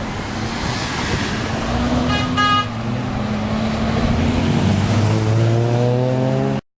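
Road traffic passing, with a car horn honking once, briefly, about two seconds in. Near the end a vehicle's engine rises in pitch as it accelerates, then the sound cuts off suddenly.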